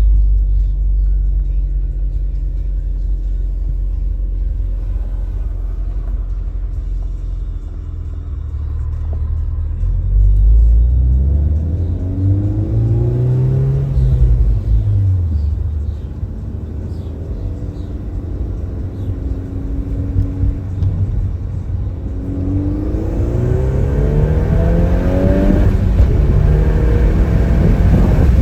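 2024 VW Golf R's turbocharged 2.0-litre four-cylinder engine under way with road rumble. Its note climbs about ten seconds in, falls back, and climbs again later as the car accelerates.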